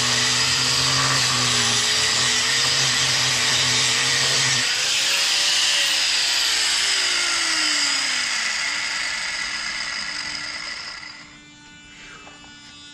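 Electric grinder running on a fiberglass boat hull with a steady hum and rushing hiss, switched off about four and a half seconds in and winding down in falling pitch; the rushing hiss fades out about eleven seconds in.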